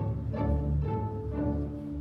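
A string orchestra of violins, cellos and double basses playing, with a strong low cello and bass part and a new bowed stroke about twice a second.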